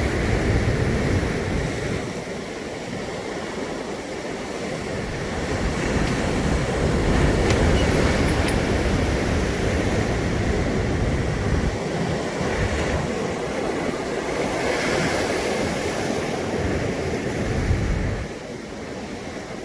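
Sea waves breaking and washing ashore, swelling and easing in surges several seconds long, with a low rumble of wind on the phone's microphone.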